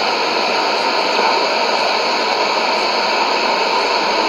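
Steady shortwave static and hiss from a Sony ICF-2001D receiver tuned to 9875 kHz AM, with no programme audible above the noise.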